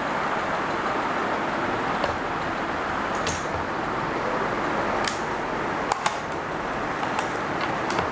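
A cardboard product box being handled as its seal is cut with a blade and the inner tray is pulled out: scattered sharp clicks, with a short scrape a little past three seconds in, over a steady rushing background noise.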